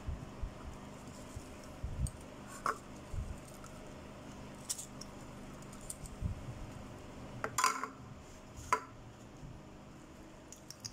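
Faint handling sounds of cut lemons being squeezed by hand over a ceramic bowl: scattered light taps and a few sharper clicks, the clearest of them in the second half.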